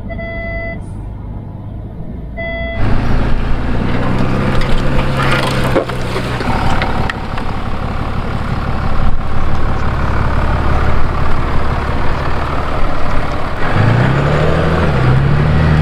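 A few short electronic beeps from the car's parking sensors inside the cabin. Then, about three seconds in, the Mercedes GLE 350d's six-cylinder diesel running loudly with a rushing noise, its engine note rising near the end as it picks up speed.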